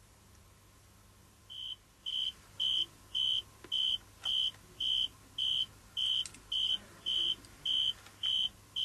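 Male tree cricket calling from a leaf it uses as a baffle to make its song louder: a clear, high, pure-toned song in even bursts, just under two a second, starting about a second and a half in.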